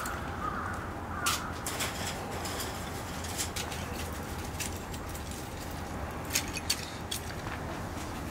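Eel-shop kitchen work: scattered sharp knocks and clicks, twice in quick succession near the end, over a steady low hum.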